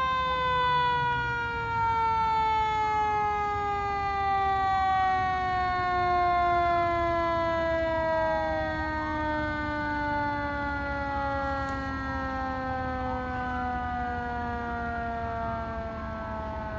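Fire truck sirens: a mechanical siren winding down, its pitch sinking slowly and steadily, while an electronic wail siren rises and falls about every three seconds, over a low rumble.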